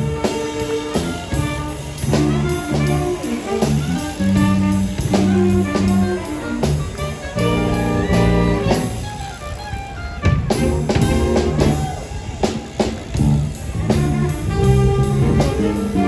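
Instrumental background music in a jazz style, with horns playing a melody over drums.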